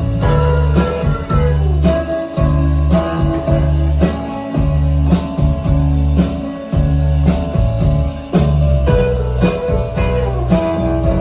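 Live rock band playing an instrumental passage: guitar over bass with a steady beat.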